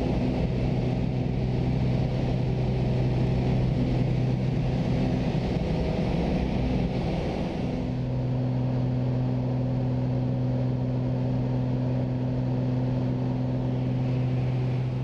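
Steady drone of a small high-wing plane's engine and propeller, heard inside the cabin in flight. It shifts a little about halfway through.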